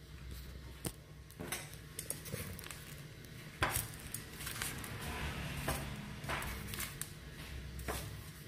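Metal tongs clacking and scraping on the wire grate of an air fryer basket while baked potatoes are lifted out and set on a plate. There are a handful of separate sharp clacks, the loudest about three and a half seconds in, with softer handling noise between.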